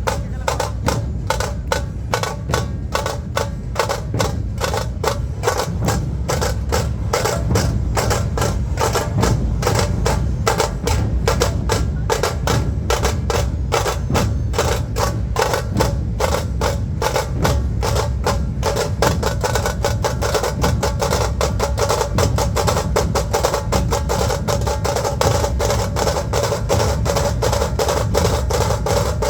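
Dhol drums playing a fast, driving rhythm of steady beats. Around two-thirds of the way through, the sound fills out and brightens as the playing grows denser.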